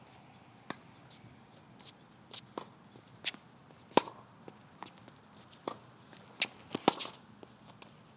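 Tennis ball struck by a racket and bouncing on a hard court: a series of sharp pops and knocks, the loudest about four seconds in and a quick cluster near the end.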